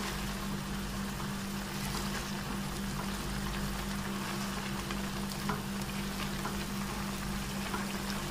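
Chicken and milk boiling hard and sizzling in a karahi over high flame, the milk cooking down, with a silicone spatula stirring through it. A steady low hum runs underneath.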